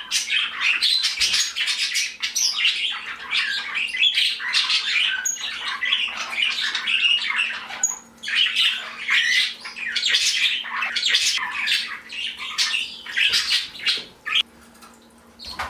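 A mixed indoor flock of pet budgies and other small parrots chattering and squawking: a dense, continuous run of short chirps and screeches. It falls quieter for a moment near the end.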